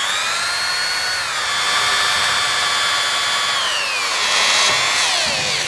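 Handheld variable-speed drill-driver with a 2 mm bit running as it drills a pilot hole through a metal motor mount. It makes a steady motor whine that drops in pitch a little after a second and again about four seconds in. It winds down and stops at the end.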